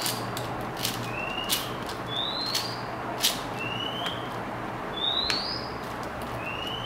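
A plastic 4x4 puzzle cube being turned by hand, its layers clicking and clattering now and then, while a bird repeats a short rising whistled note about once a second.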